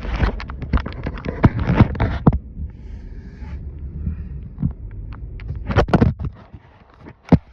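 Low rumble inside a moving car with a rapid run of irregular knocks and taps in the first two seconds, a few more around six seconds and one sharp knock near the end.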